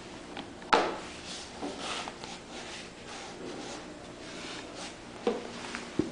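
Handling noise from a leather ankle boot being fitted onto a stockinged foot over a cardboard shoe box: a sharp knock about a second in, then rubbing and scraping, and two more short knocks near the end.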